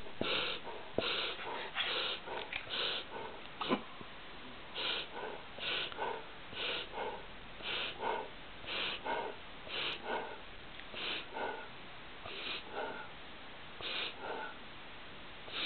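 Golden retriever reverse sneezing: repeated forceful snorting inhalations through the nose, quick and irregular at first, then settling into about one a second. It is an episode of reverse sneeze syndrome, which the vet called harmless.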